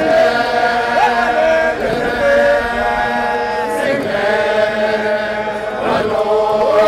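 A Zulu regiment chanting together in unison, many voices holding long notes that step in pitch, phrase after phrase about two seconds long.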